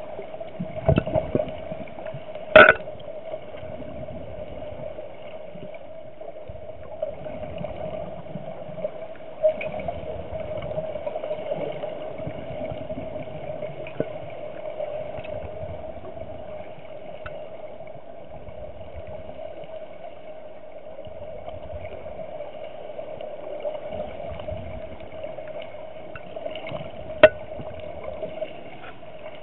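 Muffled underwater sound inside a compact camera's waterproof housing: a steady hum under intermittent low gurgling of a scuba diver's exhaled bubbles. There are two sharp knocks, a few seconds in and near the end.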